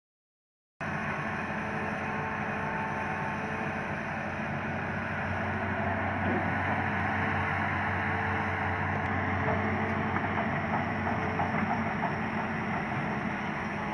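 Hitachi Zaxis 200 excavator's diesel engine running steadily while the machine swings and works its arm. The sound cuts in abruptly about a second in, after a brief dropout.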